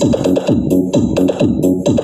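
Electronic DJ battle-mix music played loud through a homemade plywood box fitted with two 3-inch planar speakers. It is driven by rapid bass hits that drop in pitch, about four a second, under sharp high percussion.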